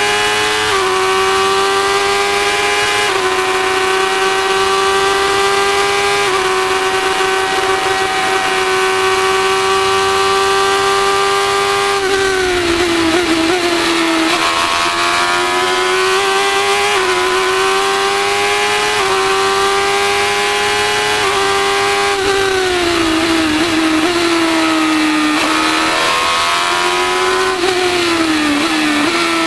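Formula 1000 race car's 1000 cc motorcycle engine running hard on track: held at high revs with quick upshifts about a second and three seconds in, then falling and rising in pitch three times as it downshifts for corners and accelerates out again.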